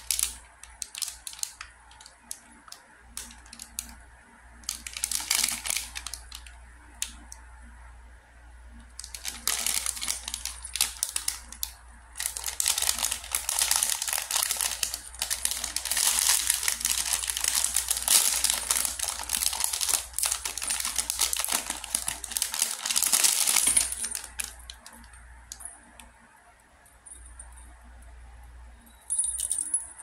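A clear plastic bag crinkling and rustling in long stretches as it is opened and the silicone butterfly pop-it keychain is pulled out, with sharp clicks along the way. Near the end the keychain's metal ring and small bell jingle lightly.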